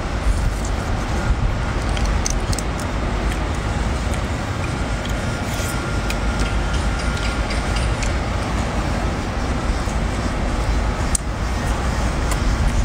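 Steady low rumble of outdoor background noise, with a few faint sharp clicks scattered through it.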